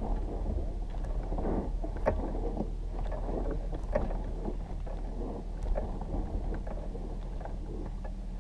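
Footsteps crunching on dry dirt and gravel, with rustling of a suit and a few sharp clicks, over a steady low hum.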